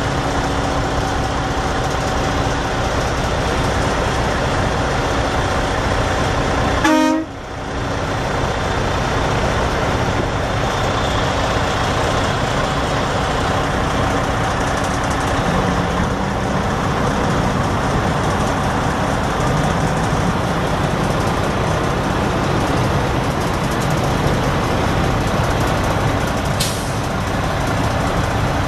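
Caterpillar C15 inline-six turbo diesel of a semi truck running steadily, a constant drone with a short break about seven seconds in.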